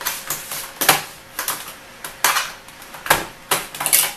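Plastic clips and edges of an LCD monitor's rear cover snapping and clicking as the cover is pried loose by hand: a run of sharp clicks, about two a second.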